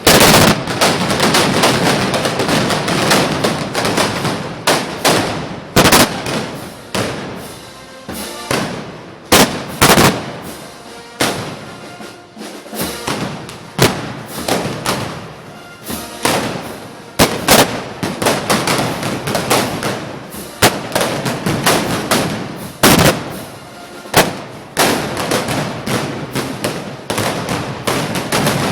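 Many loud gunpowder bangs going off at irregular intervals, sometimes several in quick succession, each with a short echo, over a continuous festive din.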